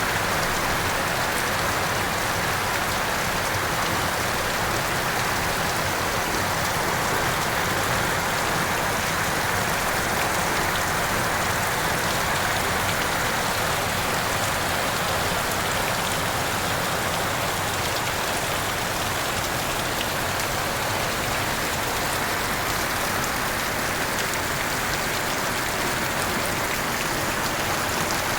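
Heavy rain falling steadily, a dense even hiss with scattered drop ticks.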